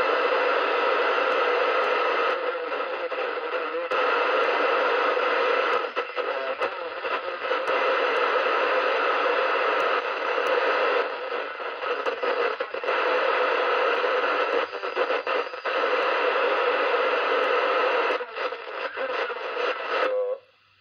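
Audioline CB radio's speaker giving out a steady rush of static and hiss while the set is tuned through its channels. The noise dips and shifts briefly at each channel change and cuts off shortly before the end.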